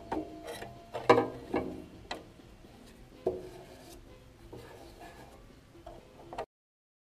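Scroll saw cutting through a wooden board, with sharp knocks that ring briefly every second or two over a low running noise. The sound cuts off abruptly near the end.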